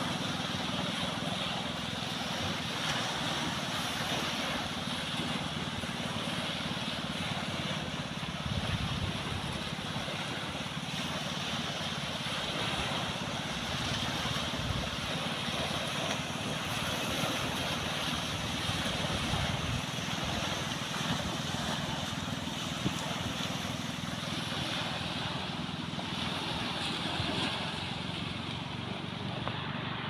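Small waves washing onto a sandy beach, with wind rumbling on the microphone.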